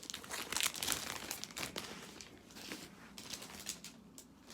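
Paper or plastic wrapping crinkling and rustling as it is pulled open by hand, busiest in the first couple of seconds, then thinning to occasional rustles.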